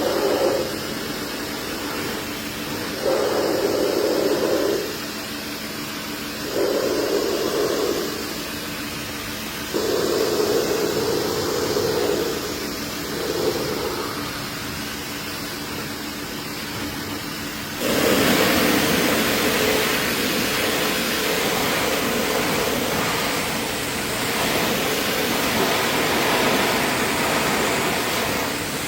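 Pressure washer running in short bursts, its motor humming on and off every few seconds, then spraying continuously with a loud hiss that starts suddenly about eighteen seconds in.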